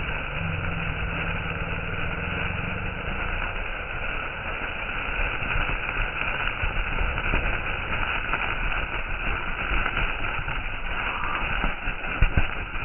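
Peacock firecracker (a Diwali fountain firework) giving off a steady hissing spray of sparks, with a few sharp crackles near the end.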